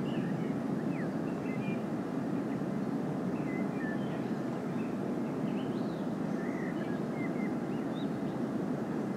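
Steady, distant rumble of a pair of C36-7i diesel locomotives approaching, with birds chirping in short whistles over it.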